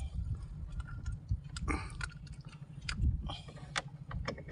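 Irregular small clicks and taps, with a couple of short rustling scrapes, from a freshly caught red snapper being handled and unhooked off a handline in a small boat, over a steady low rumble.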